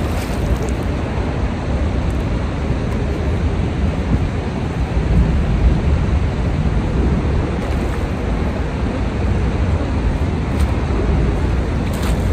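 Steady low rushing noise of wind buffeting the microphone and fast river current, with a brief splash of a hooked fish thrashing at the surface at the very start.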